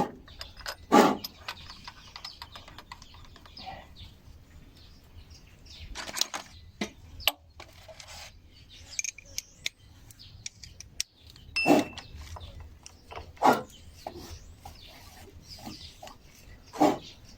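Short animal calls, scattered a few seconds apart, over a faint steady low hum.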